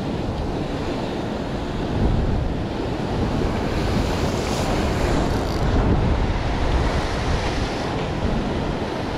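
Rough sea surging and breaking against a rocky shore, with one wave crashing into spray and hissing about four seconds in. Wind buffets the microphone throughout.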